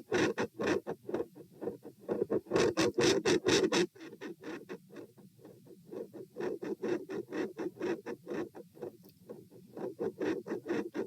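Heartbeats recorded over the pulmonic (P) area of the chest with the person standing, a rapid even train of dull thuds. About four seconds in they suddenly drop to a much lower intensity, the extreme intensity change that the uploader wonders may come from a PFO shunt.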